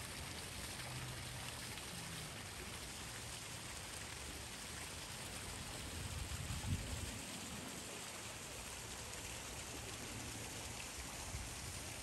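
Steady rushing, splashing water, with a brief low bump a little past halfway.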